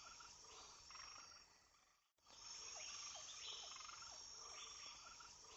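Near silence: a faint, evenly repeating chirping pattern with a thin steady high tone, cutting out to dead silence about two seconds in and resuming shortly after.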